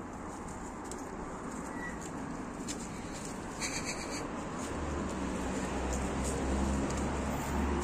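Outdoor ambience with a motor vehicle's engine hum building from about five seconds in, as a car comes closer. A brief high chirp sounds a little after the middle.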